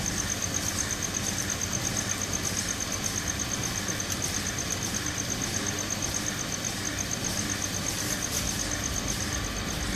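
Screw conveyor running empty, its helical screw turned by an electric motor through a worm gearbox: a steady mechanical running noise with a high tone that pulses evenly several times a second.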